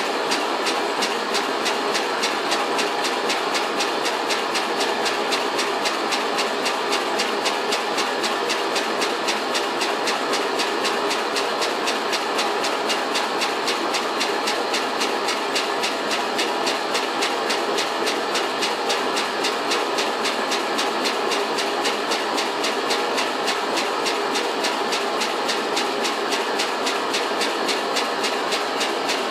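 Homemade steam engine of cast aluminium running steadily on steam, its strokes a rapid even beat over a constant hiss of steam, much of it leaking from the spool valve.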